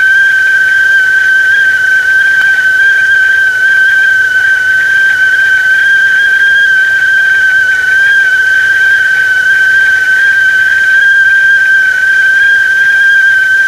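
Tea kettle whistling at the boil: one loud, steady, high note with a fainter overtone above it, holding its pitch throughout.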